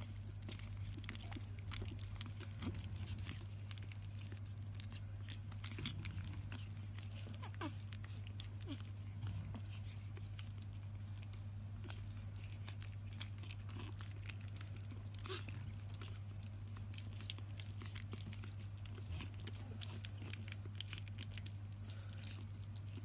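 Puppies mouthing and licking at one another: many small wet clicks and smacks, over a steady low hum.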